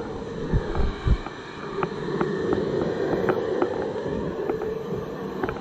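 Handheld hair dryer running steadily, blowing on a wet dog's coat. A few low thumps come about half a second to a second in.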